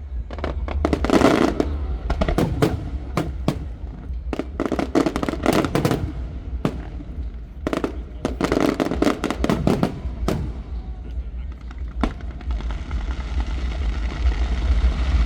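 Aerial fireworks shells bursting in quick succession, with clusters of crackling reports, over a steady low rumble.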